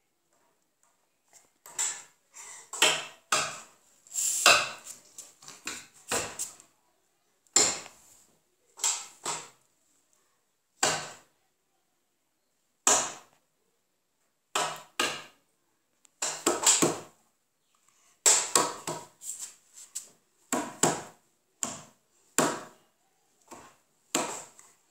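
A small spoon knocking and clattering against a stainless steel container, in irregular groups of sharp taps with short gaps between them.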